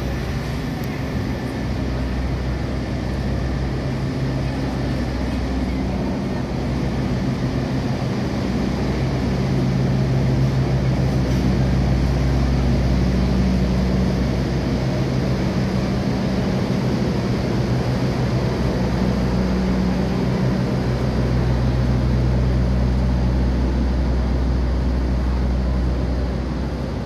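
Diesel locomotive engine running with a steady, heavy low drone that grows louder about a third of the way through.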